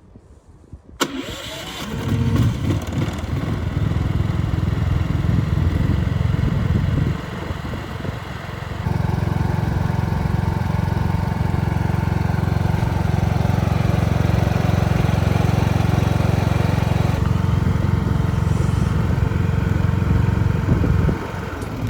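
Ducar DUED8600IR inverter generator's 450 cc gasoline engine starting about a second in and then running steadily. Its sound dips for a couple of seconds partway through before settling back to steady running, and drops again near the end.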